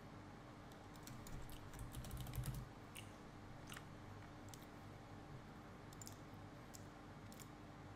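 Faint, scattered clicks of a computer keyboard and mouse, with a denser run of clicks and a low rumble about one to two and a half seconds in, over a faint steady hum.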